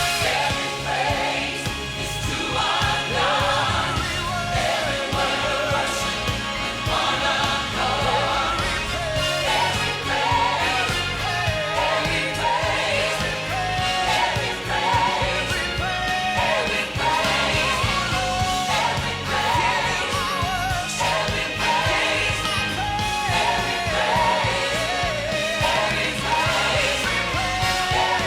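Singing with instrumental accompaniment, a sung melody carried over steady sustained chords throughout.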